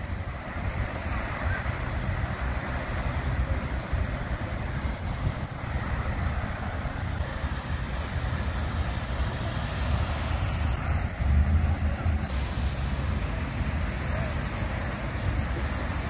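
Water fountain splashing in a steady rush, with low wind rumble on the microphone that swells briefly about two-thirds of the way in.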